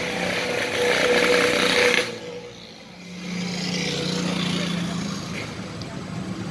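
Street traffic with motor vehicle engines running: a steady engine hum cuts off abruptly about two seconds in, and another lower engine hum comes up a second later.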